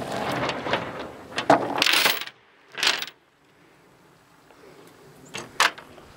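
Steel tie-down chains rattling and clinking against a steel diamond-plate trailer deck for about two seconds, one more clank about three seconds in, then two faint clinks near the end.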